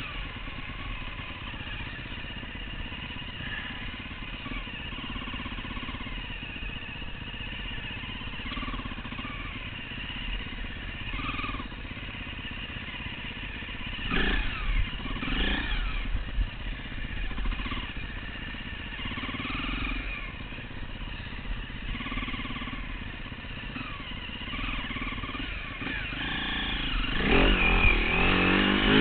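Enduro dirt bike engine running along a forest trail, the revs rising and falling with the throttle. A louder burst of revving comes about 14 seconds in, and the hardest revving comes near the end as the bike climbs a steep dirt bank.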